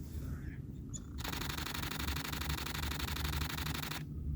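Camera shutter firing in a rapid continuous burst, starting about a second in and stopping just before the end, over a low steady background rumble.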